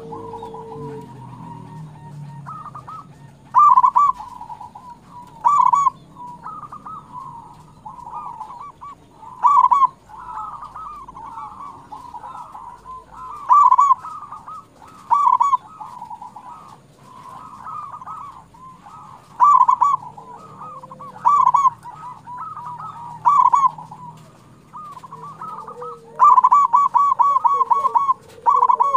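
Zebra dove (perkutut) cooing: repeated trilled coo phrases, with louder staccato phrases every few seconds and a fast run of repeated notes near the end.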